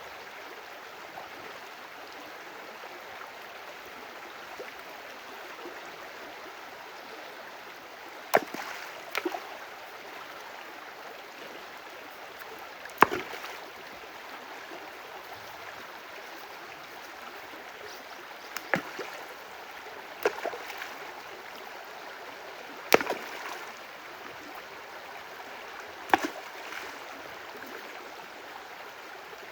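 A stream running steadily, with about seven sharp, brief sounds standing out over it between about a third of the way in and near the end.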